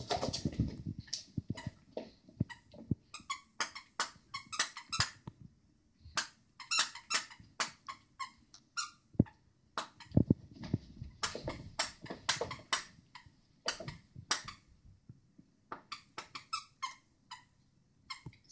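A plush squeaky toy squeaked again and again by a Jack Russell terrier biting and chewing it: quick runs of short, high squeaks with brief pauses between.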